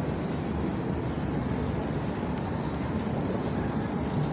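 Steady low city background rumble, like distant traffic, with no distinct events standing out.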